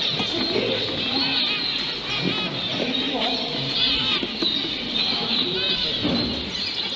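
Many caged finches chirping, short calls overlapping all the time, over the murmur of people talking.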